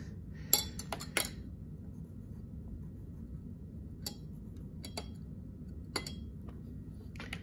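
Light clinks and taps of glassware: a glass boiling tube knocking against its glass beaker of water and a plastic ruler tapping against it, several in the first second or so, then single taps about once a second, over a low room hum.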